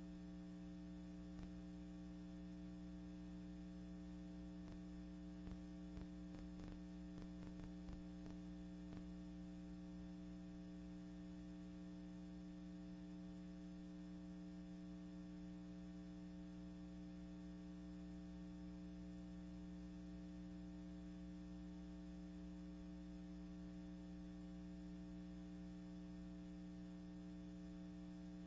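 Steady, faint electrical hum with a few faint clicks between about five and nine seconds in.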